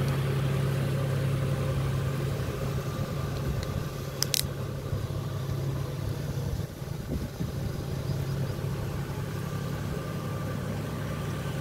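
An engine running steadily at idle, a low even hum, with a brief click about four seconds in.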